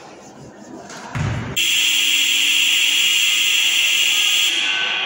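Basketball gym buzzer blaring one long, steady, loud tone for about three seconds, starting just after a single thump.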